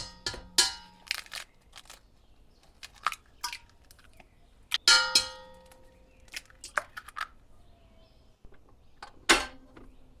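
Eggs being cracked on the rim of a mixing bowl: a series of sharp, separate knocks, a few of them setting the bowl ringing briefly.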